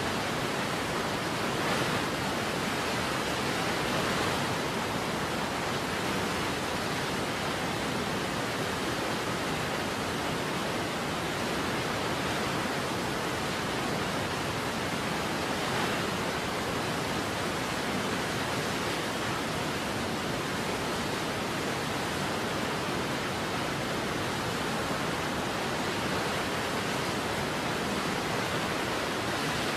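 Steady rushing of a waterfall, an even wash of water noise with no separate events.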